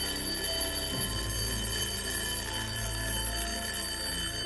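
The twin metal bells of a 1970s Jerger mechanical wind-up alarm clock ringing steadily without a break as its alarm goes off; the old alarm mechanism still works.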